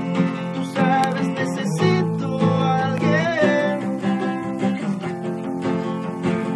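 Acoustic guitar being played, a run of strummed and picked chords.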